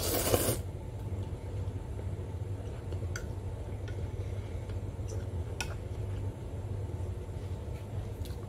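A person slurping a forkful of noodles at the start, then chewing, with a few light clicks of the metal fork. A steady low hum runs underneath.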